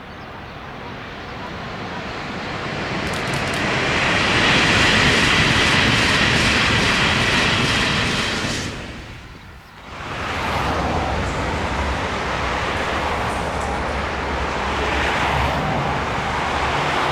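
Passenger train passing at speed: a rushing noise builds up over several seconds to a loud hiss, cuts away sharply about nine seconds in, then returns as a steady rolling rumble.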